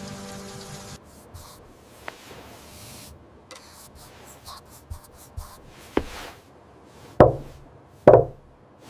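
Sparse faint taps and clicks, then two loud knocks on wood about a second apart near the end. For the first second, soft music and rain continue before cutting off.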